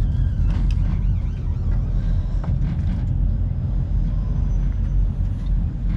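Work boat's engine running with a steady low rumble, with a few light knocks over it.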